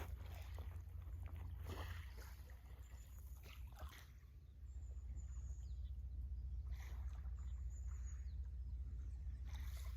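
Strong wind buffeting the microphone as a steady low rumble, easing for a couple of seconds early on, with irregular short splashes and slaps of lake water lapping at the shore.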